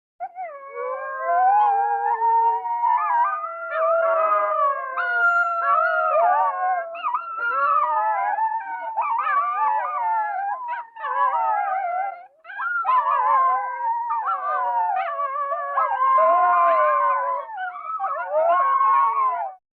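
A pack of gray wolves howling in chorus, several howls overlapping and gliding up and down in pitch. There is a short break about twelve seconds in, and the chorus cuts off suddenly near the end.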